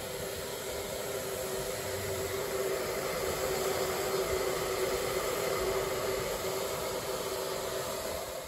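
MSR Reactor canister stove burner running at full flame, a steady hiss with a low hum under it, while it heats a pot of creek water.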